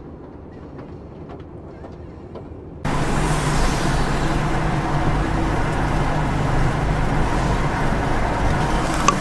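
Car driving with steady road and engine noise. About three seconds in, it jumps abruptly to a much louder traffic sound with a steady low engine drone.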